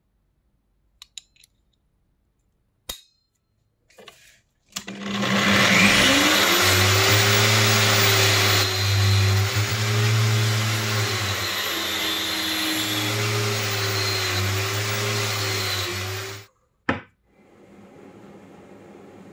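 An angle grinder fitted with a wire cup brush spins up with a rising whine, then runs for about ten seconds while a rusty bolt held in locking pliers is pressed against it, the brush scrubbing the rust off. It stops abruptly. A few light clicks of handling come before it, and a faint steady hiss follows near the end.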